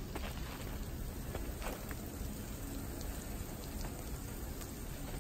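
Freezing rain falling steadily on icy, crusted snow, a constant patter with scattered light ticks.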